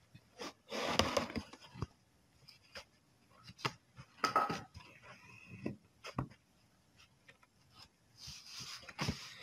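Hands handling embroidery fabric and thread close to the microphone: faint rustling and small taps in a few short bursts, the loudest about a second in and near the end.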